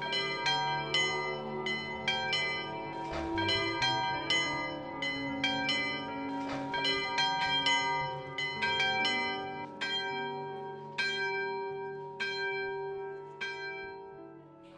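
Church bells ringing in a stone bell tower: several bells of different pitch struck in quick, irregular succession, each note ringing on. The strikes space out and the ringing fades toward the end.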